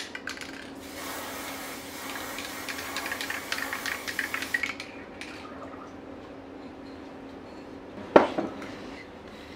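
Aerosol can of clear fixative spraying a protective coat, a hiss lasting about four seconds that breaks into short spurts near the end. About eight seconds in, a single sharp knock, the loudest sound.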